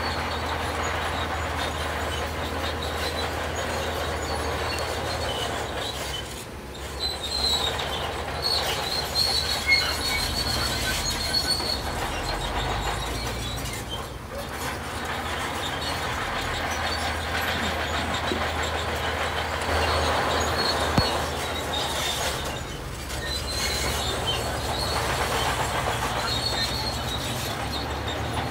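Heavy diesel construction machinery running with a steady low drone, with high-pitched metallic squeals coming and going over it and a few short knocks.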